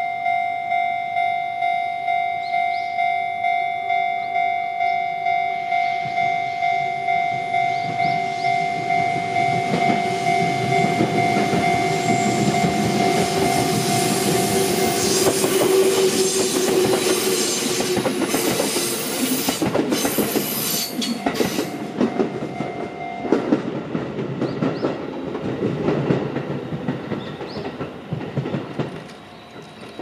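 A Japanese railway level-crossing warning bell rings with a steady, rapid pulse, about two strokes a second. An electric train approaches and passes over the crossing, its wheels clattering over the rail joints, and the bell stops as the train runs off and fades.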